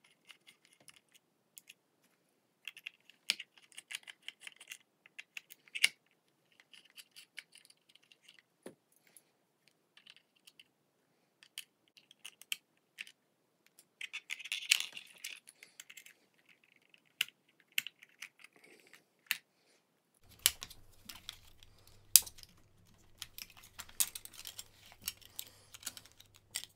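Irregular small clicks, ticks and short scrapes of a precision screwdriver turning screws in a Loona robot pet's plastic side panel, and of the plastic panel being pressed and worked loose, with a denser burst of scraping about halfway through.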